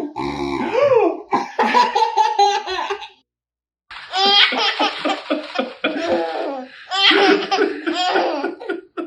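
A baby laughing in two bouts of giggles, with a short pause about three seconds in. The second bout is a quick run of short, rhythmic laugh pulses.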